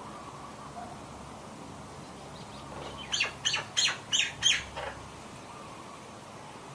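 A bird calling: a quick series of about six sharp notes, starting about three seconds in and lasting under two seconds, over a steady faint background hiss.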